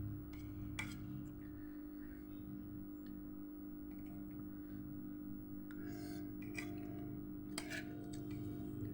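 A few light clicks of a spoon against a plate while eating, about a second in and three more times in the second half, over a steady low hum.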